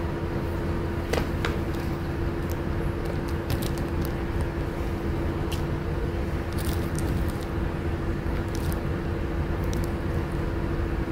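Steady low background hum with one constant tone through it, broken by a few light clicks.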